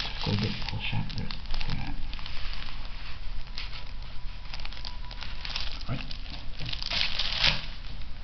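Thin plastic wrapping crinkling irregularly as a shrink-wrapped playmat is handled, with louder crackles about a second and a half in and again near the end.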